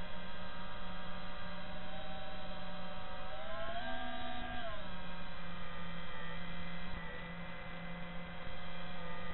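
FPV quadcopter's brushless motors whining through the onboard microphone, with a steady electrical hum underneath. About three and a half seconds in the whine rises in pitch as the throttle is punched, holds for about a second, then drops back.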